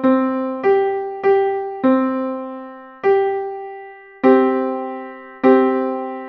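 Piano playing a slow, simple beginner's piece: seven notes struck, each left to ring and fade. The first four come about every 0.6 s and the last three are held about twice as long.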